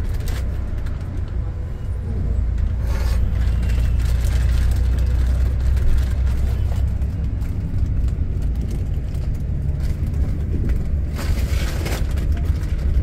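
Volvo AC coach running at road speed, heard from inside the cabin: a steady low drone of engine and road noise, with two short rattling noises, one about three seconds in and one near the end.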